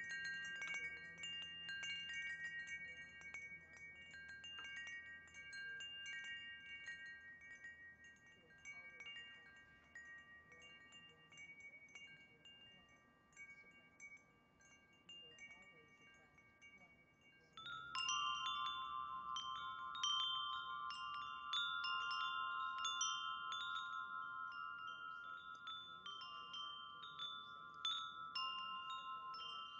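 Wind chimes ringing irregularly, several tones overlapping and sustaining. A little past halfway the sound switches abruptly to a louder set of lower-pitched chime tones.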